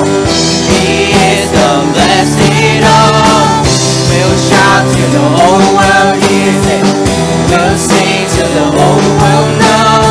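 Christian worship song played by a band, with a sung melody wavering over sustained chords.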